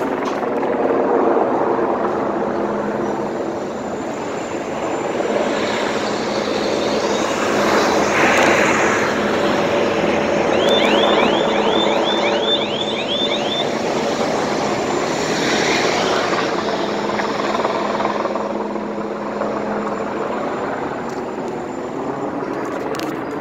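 City street traffic with a helicopter flying overhead: a steady engine drone throughout. About halfway through comes a brief run of about ten quick, rising high chirps.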